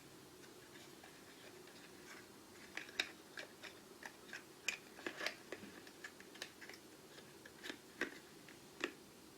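Small tools and parts being handled and set down: a scattered run of sharp clicks and light knocks starting about three seconds in, over a faint steady hum.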